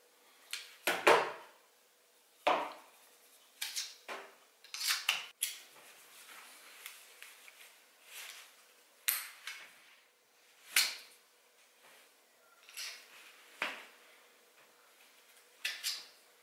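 Sharp clicks and knocks of a Kydex knife sheath being handled and clipped onto a trouser pocket, about a dozen at irregular intervals, the loudest about a second in.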